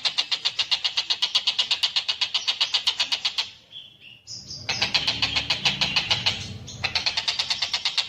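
Tengkek buto calling in a rapid, high chattering trill of about ten sharp notes a second. The trill breaks off for about a second past the middle with a few short tones, then resumes with a low rumble underneath for about two seconds.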